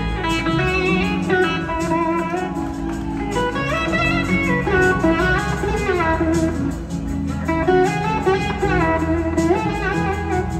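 Live blues-rock band playing, led by an electric slide guitar whose notes glide smoothly up and down over bass and drums.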